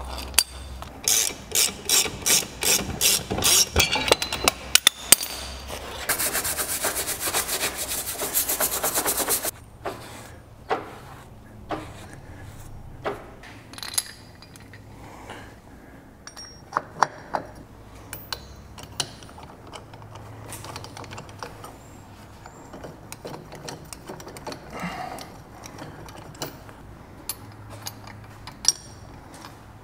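Hand socket ratchet clicking on tractor wheel nuts: a few seconds of separate back-and-forth strokes, then a fast unbroken run of clicks lasting about three seconds. After that, scattered light clicks and knocks of metal parts being handled.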